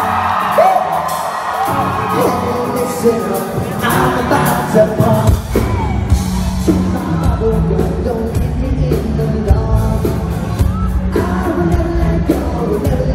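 Pop-punk band playing live through a PA with the lead vocalist singing. The band's sound gets fuller and heavier in the low end about five seconds in.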